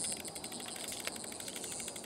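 Insects trilling: a steady, high-pitched, rapidly pulsing buzz.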